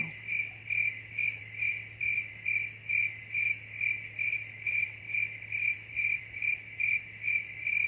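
Cricket chirping in an even, unbroken rhythm of about two to three high-pitched chirps a second.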